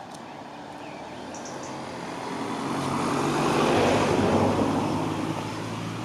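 An engine approaching and passing, a low hum under a wash of noise that grows steadily louder for about four seconds, eases slightly, then cuts off suddenly.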